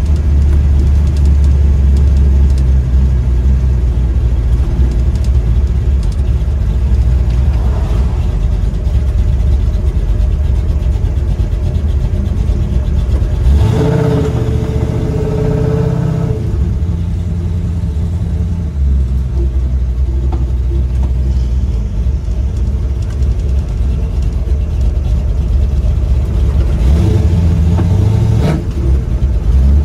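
Old pickup truck's engine running steadily as the truck drives slowly, heard from a camera on its hood. The engine note rises briefly about halfway through and again near the end as it picks up speed.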